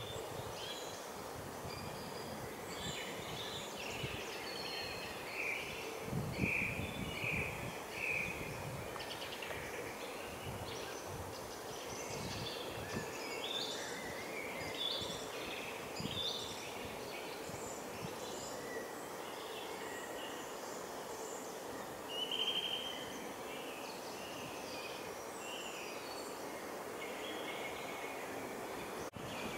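Small woodland songbirds calling and singing over a steady background hiss, with many short chirps and trills scattered throughout.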